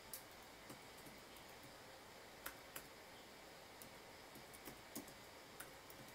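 Faint keystrokes on a computer keyboard: about ten single clicks at uneven intervals.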